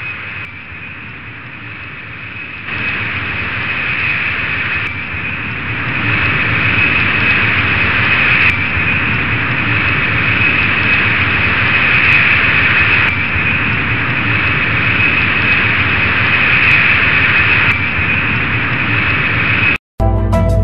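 Jet airliner engines running, a high whine over a steady rumble, growing louder in stages as the aircraft comes closer. The engine sound cuts off just before the end.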